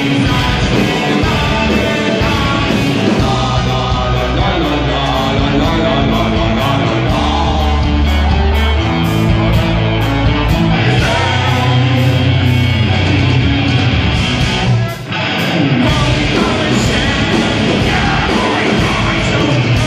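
Live rock band playing loudly: electric guitars, bass and drums with vocals, in a heavy punk-metal style. The music stops briefly about fifteen seconds in and then starts again.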